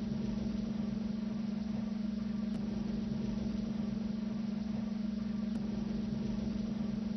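Airwolf helicopter cockpit interior ambience sound effect: a steady low hum with a fainter higher tone over a hiss, and a faint tick about every three seconds.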